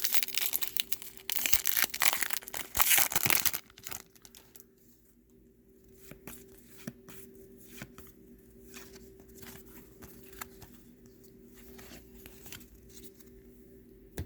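A trading-card pack wrapper torn open and crinkled for the first few seconds. Then a long run of soft ticks as the cards are flicked through one at a time.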